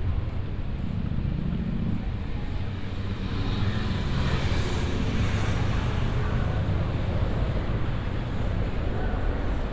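Urban outdoor ambience: a steady low rumble of traffic, with a louder hissing swell that passes about four to six seconds in.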